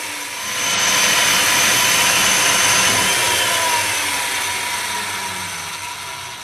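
Timberwolf mortiser's motor running with a steady high whine as it plunges its cutter into a cedar leg to cut a single mortise. It gets louder about half a second in, holds, then slowly fades over the last couple of seconds as the motor winds down.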